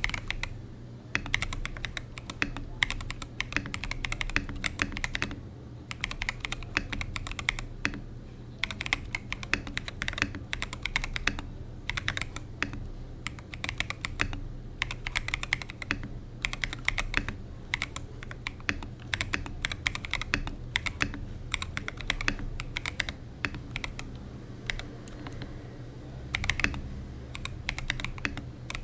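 Typing on a Gamakay 87 (Womier) mechanical keyboard with unlubed Holy Panda tactile switches, lubed stabilizers and matcha keycaps. The keystrokes come in fast runs broken by short pauses.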